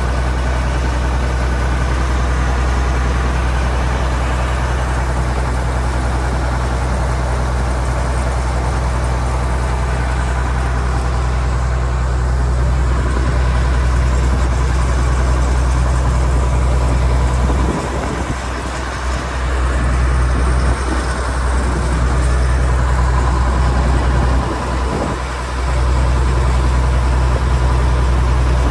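Case IH 2388 combine running steadily: a deep engine drone with a mechanical hiss above it. The drone dips briefly twice, about two-thirds of the way in and again near the end.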